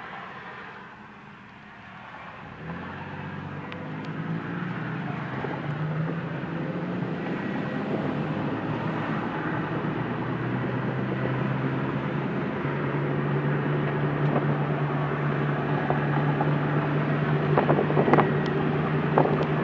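A car driving, heard from inside the cabin. Engine and road noise build as the car pulls away and speeds up, then settle into a steady cruising hum. A few sharp clicks come near the end.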